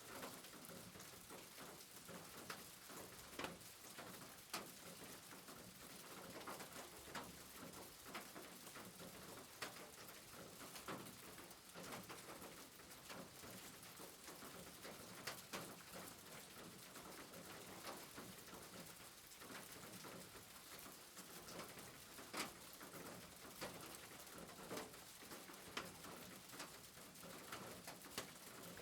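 Faint steady rain, with irregular single drops tapping sharply over the hiss.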